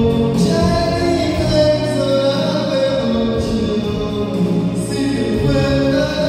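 Music with singing voices over a steady bass line.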